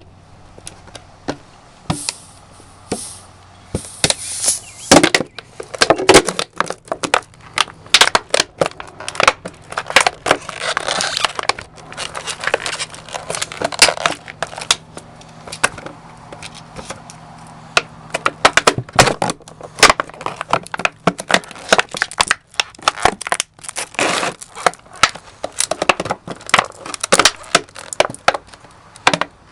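Heavy firefighter boots stomping on an empty snack jar, crushing it: many sharp cracks and crunches at an irregular pace, with stretches of crackling as the jar gives way.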